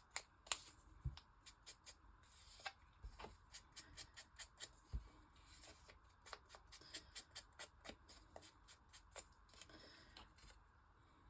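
Faint, irregular light taps and paper rustles of hands at paper craft work: small paper labels being handled and their edges inked with a brush.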